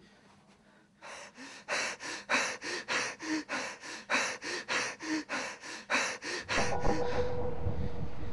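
A man panting hard and fast, about three loud breaths a second for several seconds. About six seconds in, the panting gives way to a steady low rumble with a faint held tone.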